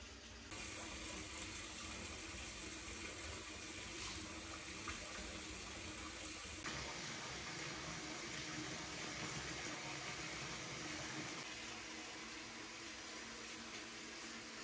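Running water, like a tap running into a sink: a steady rush that steps up about half a second in.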